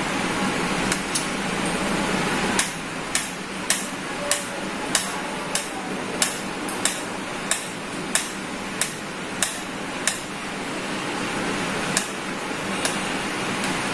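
A knife blade tapping a plate as a banana is cut into rounds on it: short, sharp clicks, about one every half-second through the middle and sparser near the start and end. A steady background hiss runs underneath.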